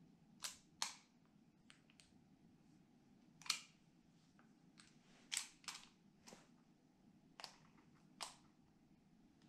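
Sharp metal clicks and clacks of a .357 Magnum revolver being handled, its cylinder being worked open. About a dozen clicks come at uneven intervals, the loudest about three and a half seconds in.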